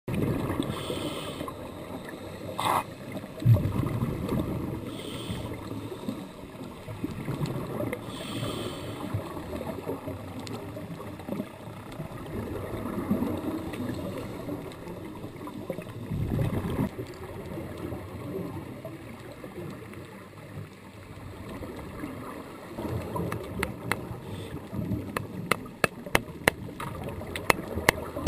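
Underwater sound of scuba divers' regulators, exhaled bubbles coming in bursts every few seconds over a steady low rumble of water; a run of sharp, evenly spaced clicks starts near the end.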